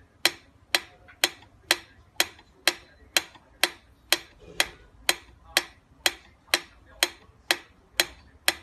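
Mechanical pyramid metronome ticking at a steady beat, about two sharp clicks a second.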